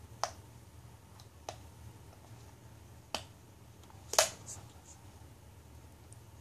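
Sharp snaps and cracks of a Kinder Surprise egg being opened: four separate clicks with a few fainter ones between them, the loudest about four seconds in.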